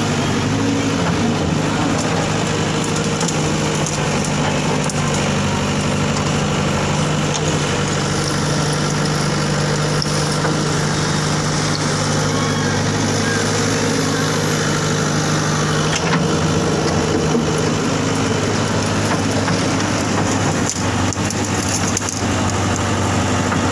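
JCB backhoe loader's diesel engine running steadily while its excavator arm digs silt out of a drain, with a few knocks near the end.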